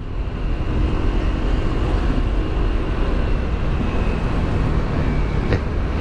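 Motorcycle engine running at a steady cruising speed, with wind rumble on the helmet-mounted microphone.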